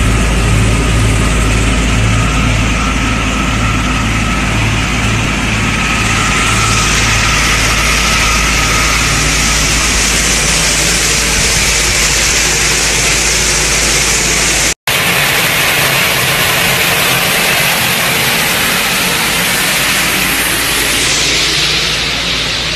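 A sewer jetting truck's engine and high-pressure water pump running steadily under pressure, with a continuous hiss over a low hum and a pulsing beat for the first several seconds. The sound cuts out for an instant about fifteen seconds in, then carries on.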